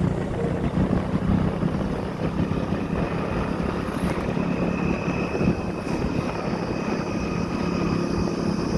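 Motorcycle engine running steadily at road speed, mixed with a continuous rush of wind noise.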